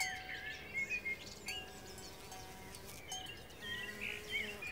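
Faint birdsong: many short chirping calls, over soft held tones of background music.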